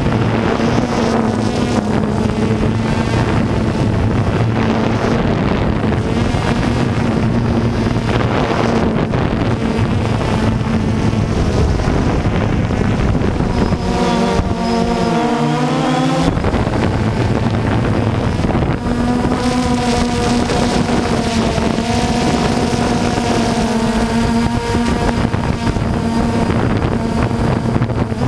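DJI Phantom 2 quadcopter's motors and propellers buzzing steadily in flight, with wind rushing over the microphone. For a couple of seconds around the middle the buzz wavers and shifts in pitch as the motors change speed, then settles again.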